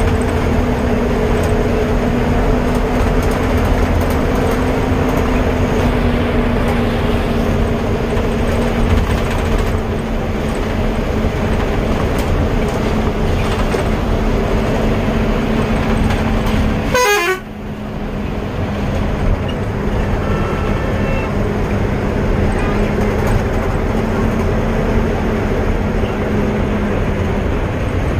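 A road vehicle on the move: a steady engine drone over a heavy low rumble, dipping suddenly about two-thirds of the way through and then building back up.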